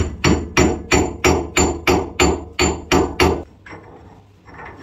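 Hammer blows in a fast, even series, about three a second and eleven in all, each with a bright ring, stopping about three and a half seconds in.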